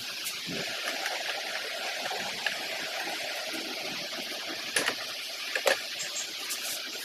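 A few sharp knocks and clicks, the two loudest close together about five seconds in, as an LED TV is set and hooked onto its wall-mount brackets, over a steady background hiss.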